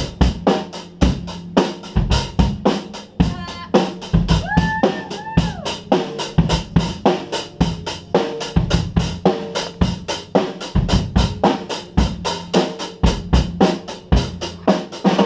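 Drum kit played in a steady, fast groove of bass drum and snare, about four hits a second.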